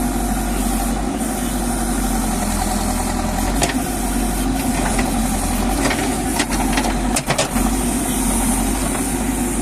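JCB backhoe loader's diesel engine running steadily, with a few short knocks and clanks about halfway through.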